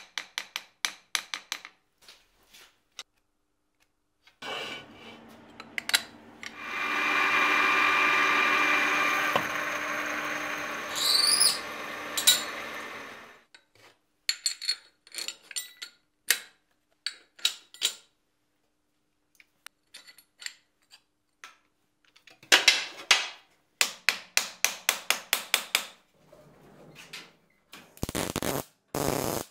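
Metal shop sounds at a power hammer's tooling. There are scattered metal clicks and knocks, then a power tool runs steadily for several seconds with a rising whine near its end, then a quick run of rapid clicks, and welding crackle near the end.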